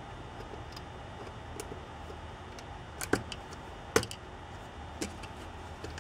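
Small metal nuts being pushed into the corner holes of acrylic case plates: a few sharp clicks and taps, the loudest about three and four seconds in.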